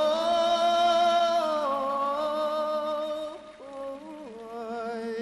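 A young man singing solo, drawing out long held notes. About three and a half seconds in, the melody steps down to a lower held note and the voice gets quieter.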